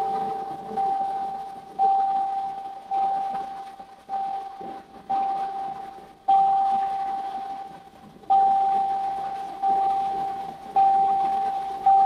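Steel tongue drum struck slowly, mostly one note repeated about once every second or two, each stroke ringing out and fading before the next. The waterfall's rush runs faintly underneath.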